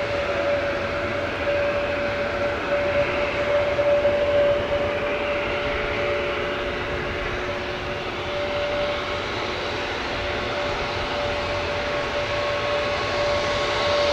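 Boeing 737-800's CFM56 jet engines at taxi power: a steady whine over a rushing hiss. A second, lower tone joins about halfway through.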